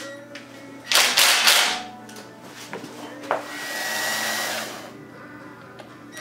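Power ratchet spinning out the front timing-cover bolts on an LS V8 block. It runs in two goes: a loud short whir about a second in, then a click and a longer, quieter whir with a steady whine around four seconds in.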